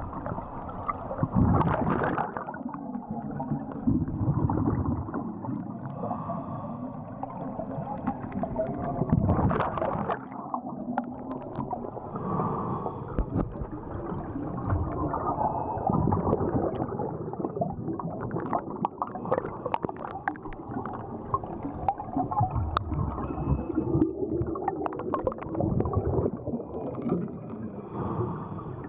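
Scuba regulator breathing recorded underwater: exhaust bubbles gurgle out in repeated surges every few seconds, with a low rumble between them.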